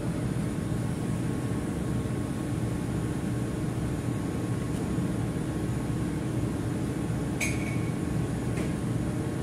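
Steady machinery and ventilation hum of a ship's engine control room, even in level, with a faint steady tone. A single light click about seven and a half seconds in.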